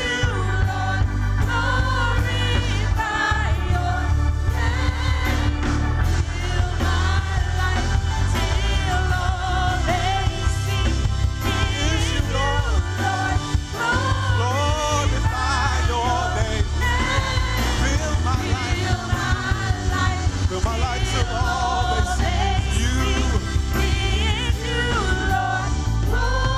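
Gospel praise-and-worship singing: a lead vocalist with the praise team over a full band with steady bass and drums.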